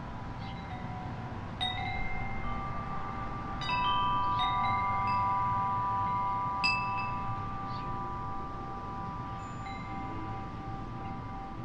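Wind chime ringing: a few clusters of strikes, the loudest about 4 and 7 seconds in, each note ringing on and slowly fading. Under it runs a steady low rumble.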